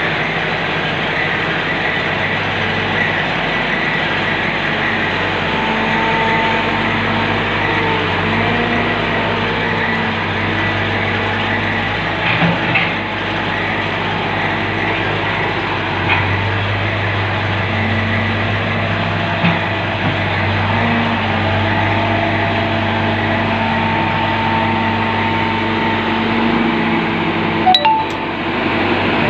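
Diesel engine of a walking excavator running under hydraulic load, its note stepping up and down as the boom and legs move. A few short knocks and clanks are heard about twelve, sixteen and nineteen seconds in, and again near the end.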